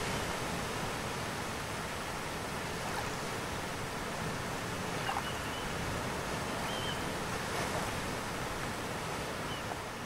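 Surf breaking and washing up a sandy beach in a steady rush, with wind rumbling on the microphone. A few faint, short, high calls from sea birds come in the second half.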